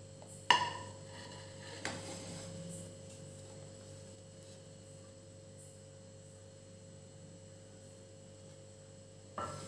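A sharp clack about half a second in and a lighter knock near two seconds, as a metal loaf tin and a ceramic plate are handled on a stone counter while a baked cake is turned out onto the plate. Between and after them, only a faint steady electrical hum.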